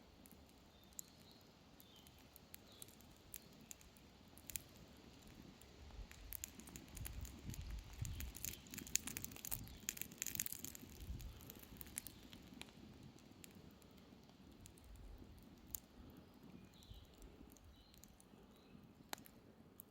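Wood campfire crackling, with scattered sharp pops of burning firewood. A low rumble swells up from about six seconds in and dies back down after about twelve.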